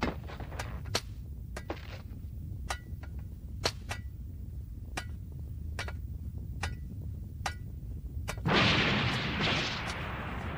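Anime action sound effects: about a dozen sharp cracks at uneven intervals over a steady low rumble, several with a brief high ring. Near the end comes a loud rush of noise that dies away over about a second.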